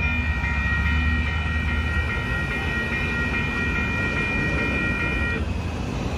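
Grade-crossing warning bell ringing over and over while a Union Pacific freight train rumbles past. The bell cuts off about five seconds in as the crossing signals switch off after the train has cleared.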